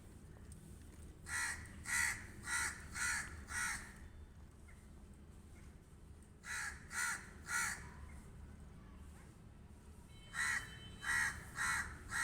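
Pet crow cawing in three bouts of short, evenly spaced caws: five starting about a second in, three near the middle and a few more near the end.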